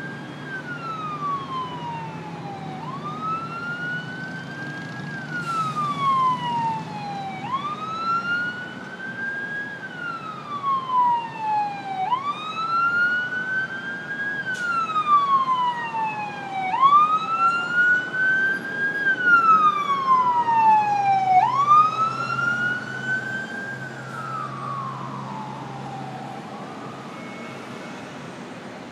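Fire ladder truck's electronic siren on a slow wail, rising and falling about every four and a half seconds over a steady hum of freeway traffic. It grows louder to a peak around twenty seconds in, then fades away.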